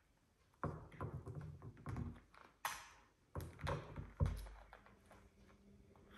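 Blue-and-gold macaw crushing a walnut shell with its beak on a hard tabletop: an irregular run of cracks, crunches and knocks, the loudest sharp knock about four seconds in.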